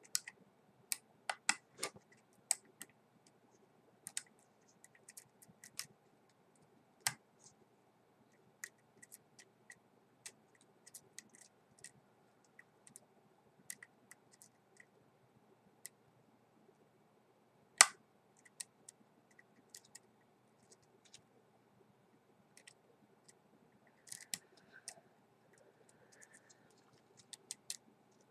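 Irregular small metallic clicks and ticks of a hook pick lifting pin tumblers in a six-pin pin-tumbler lock held under light tension, with one sharper, louder click a little past the middle.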